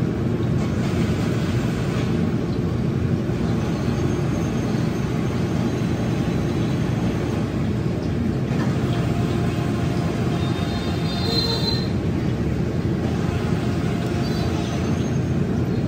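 Steady low rumbling street background noise, with a few faint high squeals around the middle and near the end.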